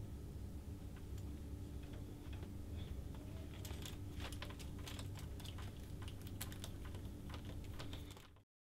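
Oscilloscope probes and their leads being grabbed and knocked about by hand, giving light, irregular plastic clicks and rattles that come thick and fast from about three and a half seconds in, over a steady hum of bench equipment. The sound cuts off just before the end.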